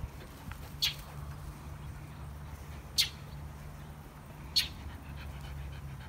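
A bird giving a short, sharp alarm call three times, about two seconds apart, scolding a dog that is near its nest.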